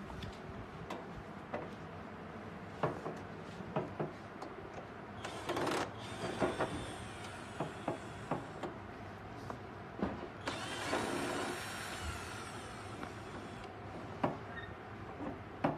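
Hand disassembly of a vacuum casting machine's sheet-metal housing: scattered clicks and knocks of a screwdriver and screws on the metal case, with two longer scraping, rubbing stretches about five and ten seconds in.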